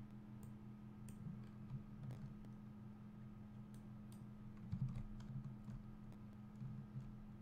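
Faint, scattered clicks of a computer mouse and keyboard keys, with a soft low thump about halfway through, over a steady low hum.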